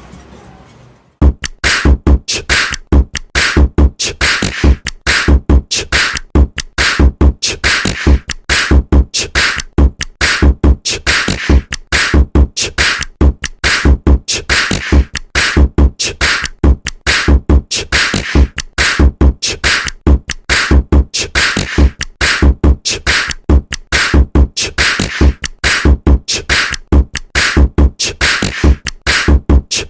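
A CyanogenMod ringtone playing: electronic music with a fast, steady, heavy beat. It starts about a second in and cuts off just before the end.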